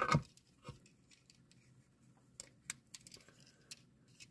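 Faint scattered clicks and taps of a snap-on plastic bodywork part being pressed onto a Majorette Renault Megane RS die-cast toy car.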